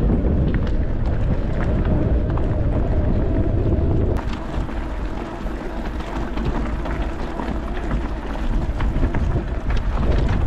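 Wind buffeting the microphone of a camera on a moving mountain bike: a loud, steady low rumble with scattered small ticks. About four seconds in the sound changes abruptly and turns somewhat quieter.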